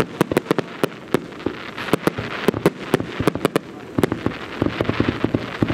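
Fireworks display: a dense, irregular volley of sharp bangs and pops from exploding shells, several a second, over a steady hiss.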